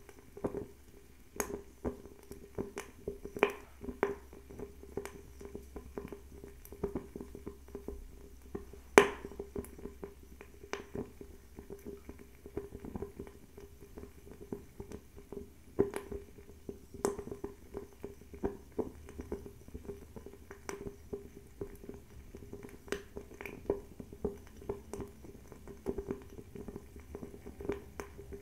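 Bio-ethanol table fireplace (höfats Spin 90) burning, with irregular small crackles and pops over a steady low flame hum; the sharpest pop comes about nine seconds in.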